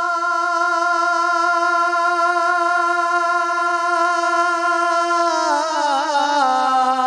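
A man singing a devotional Urdu naat into a microphone, holding one long note steady for about five seconds. He then ornaments it with wavering turns and drops to a lower note near the end.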